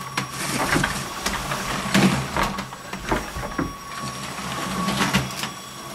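Small electric motor of a motorised LEGO steam locomotive whirring with a steady whine as the train runs along plastic track, with irregular clicks and knocks of the wheels and cars.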